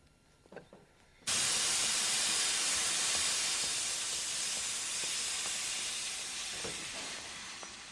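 Steam locomotive letting off steam: a loud hiss starts suddenly about a second in and slowly fades.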